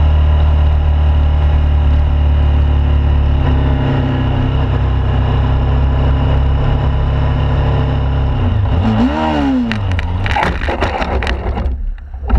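Motorcycle engine and wind noise at riding speed. About nine seconds in comes a brief wavering squeal, then roughly two seconds of scraping and clattering knocks as the bike goes down and slides on the road.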